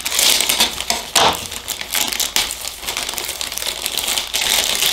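Clear plastic packaging bag crinkling and rustling as it is opened by hand to take out a wiring harness, in a dense run of quick crackles.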